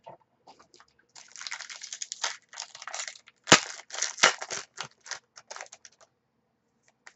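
Wrapper of a trading-card pack crinkling and tearing as it is ripped open by hand, with one sharp crack about halfway through.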